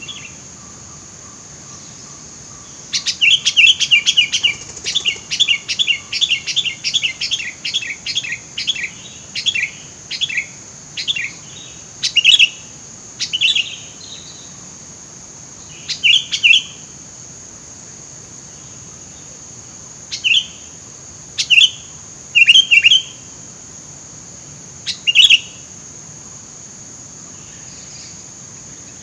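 Sooty-headed bulbul (kutilang) calling: a fast run of bubbly chirping notes for several seconds, then single short calls a second or a few seconds apart. A steady high-pitched hiss runs underneath.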